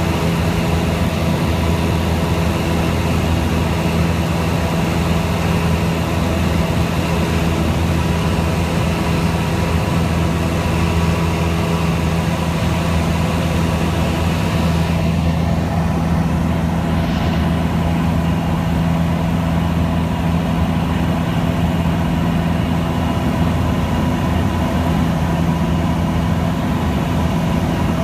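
Light aircraft's engine and propeller droning steadily at an even pitch.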